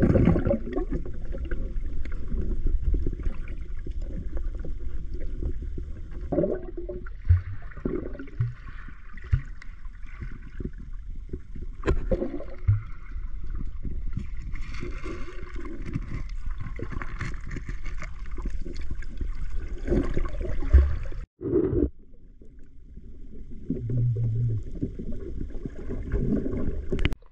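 Muffled underwater sound from a camera held beneath the water: a steady low rumble of moving water with gurgling and scattered knocks and clicks.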